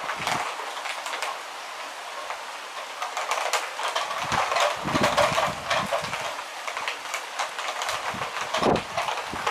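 Rain falling steadily, a continuous hiss with crackling drops, with a few short gusts of wind buffeting the microphone partway through and near the end.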